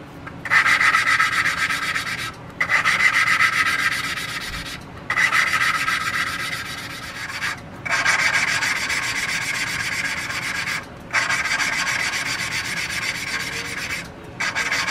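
A valve in a Kohler K181 flathead block being hand-lapped into its seat with a suction-cup lapping stick spun back and forth between the palms. It makes a steady gritty rasp in about six stretches of two to three seconds, each broken by a brief pause.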